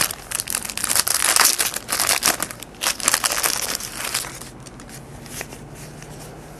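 Crinkling and tearing of a jumbo baseball-card pack's plastic wrapper as it is ripped open, for about four and a half seconds, then only quiet handling.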